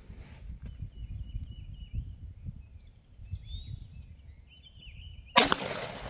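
A single 9mm pistol shot from a Glock, about five seconds in: a sharp, loud report with a short fading tail. It fires a hot handload of 5.3 grains of CFE Pistol under a 124-grain bullet, above the published Hodgdon maximum.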